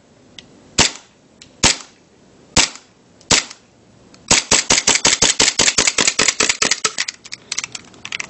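WE full-metal 1911 MEU gas blowback airsoft pistol, run on propane, firing: four single shots a little under a second apart, then a fast string of about six shots a second that grows weaker near the end and stops. The owner puts the weak shooting down to propane losing pressure in the cold and a magazine not fully filled.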